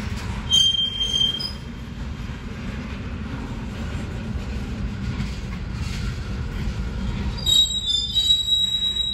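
Loaded ethanol tank cars of a freight train rolling past with a steady low rumble. The wheels squeal in thin high tones about half a second in and again, in several tones at once, near the end.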